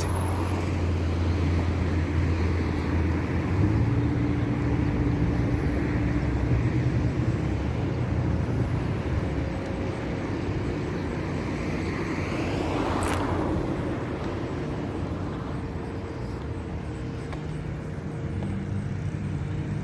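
Steady outdoor traffic noise, with one vehicle passing close about thirteen seconds in.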